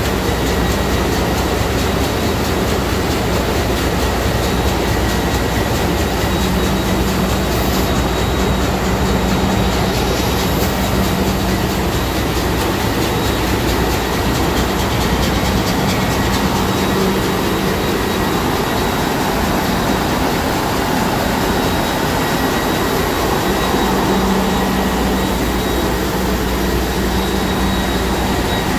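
Sulzer 6-62RTA two-stroke slow-speed marine diesel main engine running at full speed: a loud, steady engine-room noise with a constant high whine and no change in pace.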